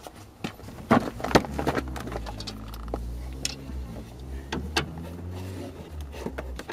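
Hand tools clicking and knocking against the steering track rod as it is turned to adjust the front wheel toe, with a cluster of sharper knocks about a second in, over a steady low hum.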